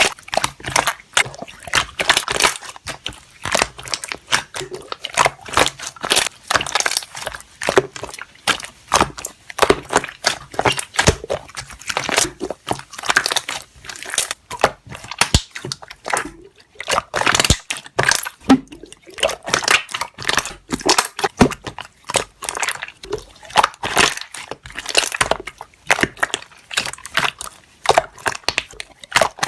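Thick dough-like slime being squeezed and poked by hand, its trapped air bubbles popping in a rapid, irregular stream of wet clicks and crackles.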